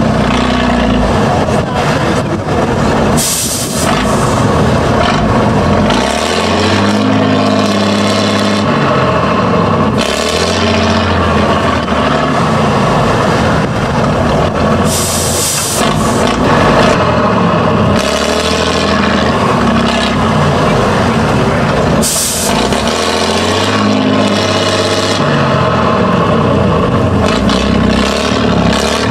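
Tatra 813 8x8 trial truck's diesel engine revving up and down again and again under load in deep mud. A short hiss of air from the air brakes comes four times.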